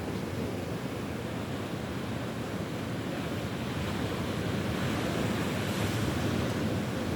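Sea waves washing onto a beach: a steady rush of surf that swells a little about five seconds in.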